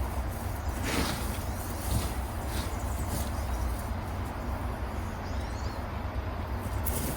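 Soft scraping and rustling of potatoes being dug out of garden soil, a few brief strokes spread over a steady low rumble.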